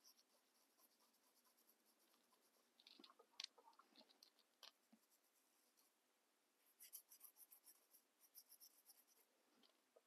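Faint scratching of a coarse, dense bristle brush scrubbing dry pastel onto an artificial duck foot, in quick short strokes: a spell a few seconds in and a busier one in the second half.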